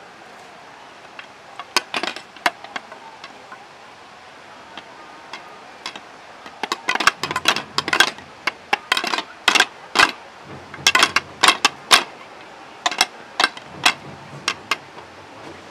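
Wooden staffs knocked against paving stones by a group of performers: a few sharp knocks about two seconds in, then a dense, uneven run of knocks from about six seconds in until near the end.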